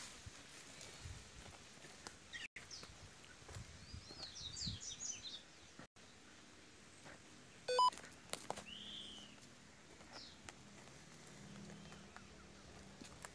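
Wild birds chirping and calling in short high phrases over faint outdoor noise. A brief loud pitched blip comes a little past the middle, and the sound cuts out for an instant twice early on.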